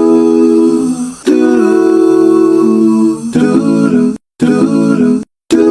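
Cartoon soundtrack music: a run of held, humming-like notes, each a second or two long and changing pitch from note to note, broken by two brief dead-silent gaps in the last second and a half.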